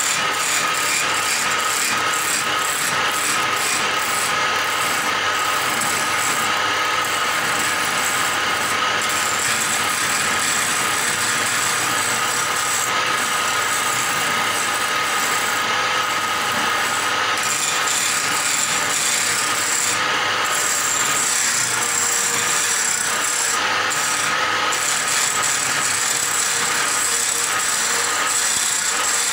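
Wood lathe turning a wooden spindle while a hand-held chisel cuts into it: steady cutting noise of wood being shaved, over a faint steady whine from the machine.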